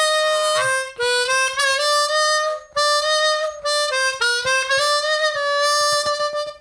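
Seydel 1847 Lightning diatonic harmonica played on the fourth hole, testing the overblow: sustained notes in several short phrases, with the pitch sliding and stepping up between the plain note and the overblown one. The fourth-hole overblow is judged not quite perfect, needing a slight adjustment, unlike the clean fifth and sixth holes.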